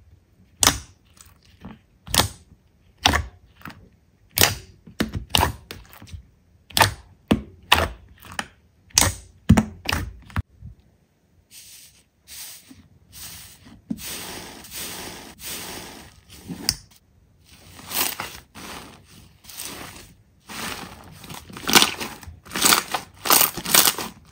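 Slime being pressed and squeezed by hand, giving sharp separate pops at first, then dense continuous crackling from about halfway.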